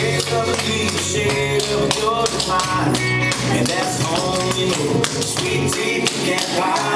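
Clogging taps beating out quick, dense steps on a wooden dance floor over a country song with a singer played through loudspeakers.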